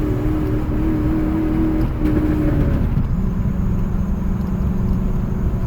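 Chevrolet Silverado's 5.3-litre V8 at full throttle while towing a trailer. Its steady note drops to a lower, steady pitch about three seconds in. The engine has a miss under load that the owner thinks might be a coil.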